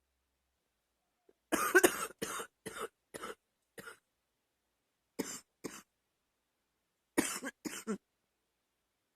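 A girl coughing in short fits: a run of about five coughs starting about a second and a half in, then two coughs, then two more near the end, with silence between the fits.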